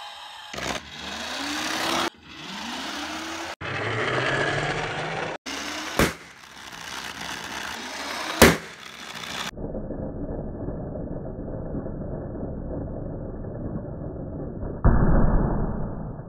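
Edited toy-car play sound effects cut together: rising whirs, then two sharp cracks, the louder about eight and a half seconds in, then a steady muffled rumble that swells suddenly near the end.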